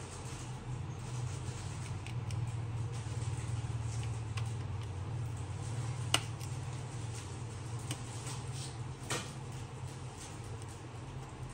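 iPhone 7 display assembly snapping into the phone's frame as it is pressed shut by hand: one sharp click about halfway through and a softer one some three seconds later, with light handling ticks, over a steady low background hum.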